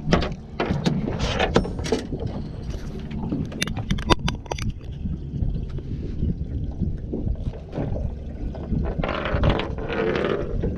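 Sharp knocks and taps on a fiberglass boat deck as a small redfish is landed and flops about while being grabbed, over steady low wind and water noise.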